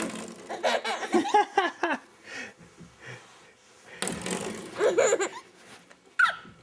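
Baby laughing and babbling while he flicks a coiled-spring doorstop, which gives a short twang near the end.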